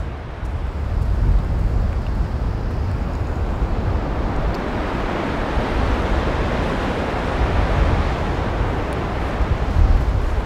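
Wind buffeting the microphone in a gusty low rumble, over a steady rush of breaking surf.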